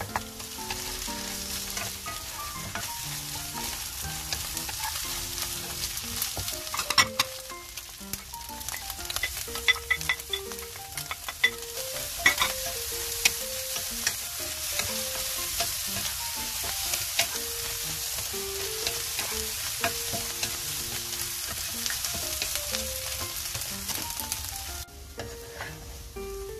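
Tofu cubes and scrambled egg sizzling in a hot frying pan, stirred and scraped with a wooden spatula, with scattered clacks of the spatula against the pan. The sizzling drops away suddenly near the end.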